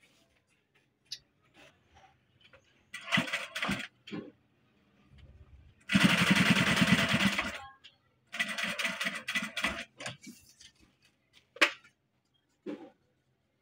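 Juki industrial sewing machine stitching upholstery fabric in short runs. The longest and loudest run comes about six seconds in and lasts under two seconds, with shorter runs before and after it and small clicks between.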